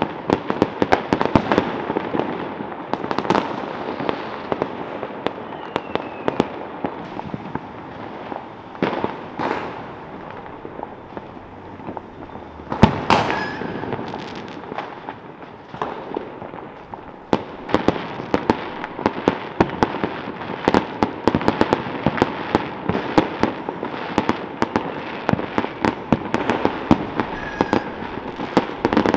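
Many fireworks going off at once: a dense, constant crackle of bangs and pops, with a louder bang about halfway through.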